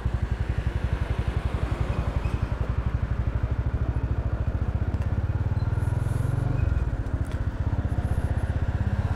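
Small motorbike engine running steadily with a fast, even putter. Another vehicle's lower drone comes in about five seconds in and drops away in pitch shortly before seven seconds.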